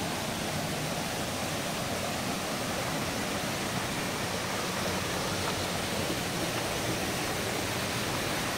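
Small rocky forest stream flowing, a steady even rush of water.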